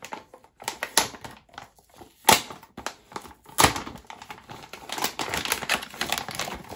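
Clear plastic bag around a graphics card crinkling and rustling as it is handled and pulled open, with two sharp snaps of the plastic about two and three and a half seconds in, and denser crackling near the end.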